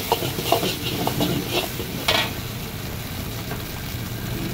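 Metal ladle scraping and clanking against a steel wok while stir-frying egg and shredded cabbage, over a steady sizzle of frying. The strikes come roughly every half second for the first two seconds, then the sizzle carries on with the ladle mostly still.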